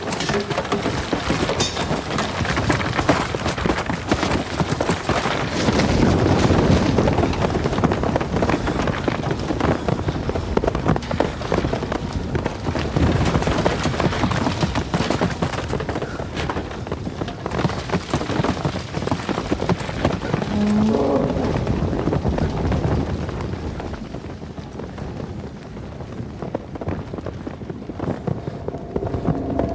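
Heavy hailstorm: large hailstones pelting snow, ice and canvas tents in a dense, continuous patter. It grows quieter and muffled in the last few seconds, as heard from inside a tent.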